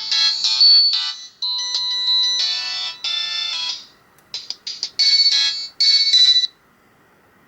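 Alcatel 2000X polyphonic ringtone melody played by the Alcatel 1054D phone's own MIDI synthesizer, a run of bright, beepy synthetic notes. It breaks briefly about four seconds in, resumes with quicker clipped notes, and stops about six and a half seconds in, leaving only a faint high whine.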